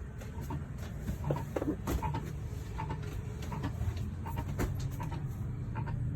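RV rooftop air conditioner's fan spinning in the wind while the unit is switched off, giving short, irregular squeaks, a few a second, over a steady low rumble. The noise is the wind turning the fan, not a fault in the unit.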